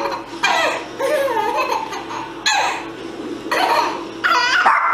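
Baby laughing hard in about five separate bouts of giggles, the last one near the end the highest-pitched and squealing.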